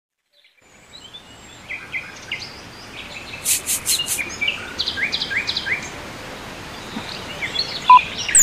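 Outdoor ambience sound effect: a steady hiss with scattered bird chirps, fading in after a moment of silence. Near the end, a short beep from a remote's red button being pressed stands out as the loudest sound.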